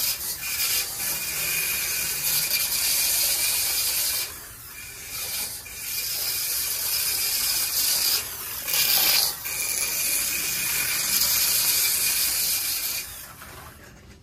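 Aurora Vibrator HO slot cars running on the track, their vibrating-reed drives making a loud, rasping mechanical buzz. The buzz dips out briefly a few times as the drivers let off the throttle, and stops about a second before the end.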